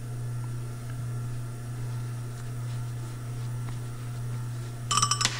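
Steady low hum of workshop room tone, with a few faint clicks from steel balls being pressed back into a gearbox bearing cage. Near the end comes a brief, loud, shrill squeak.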